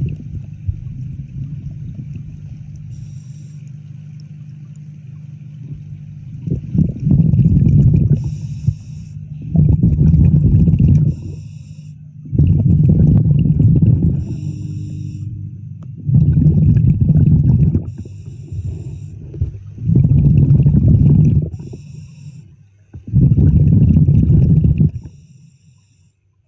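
Underwater breathing of a diver: exhaled bubbles gush out in regular bursts about every three to four seconds, over a steady low hum.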